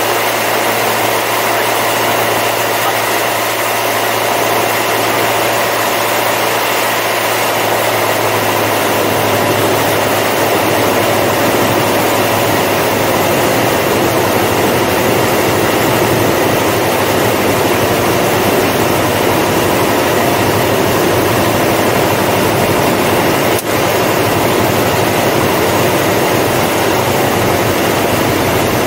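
Cabin noise of a single-engine piston light aircraft on approach to land: steady engine and propeller drone with rushing airflow. A low hum in the drone fades out about a third of the way in, and there is one short click near the end.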